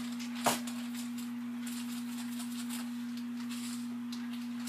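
A steady low electrical hum at a single pitch, with a short click about half a second in and faint rustling of a plastic bag of seasoned almond flour being handled.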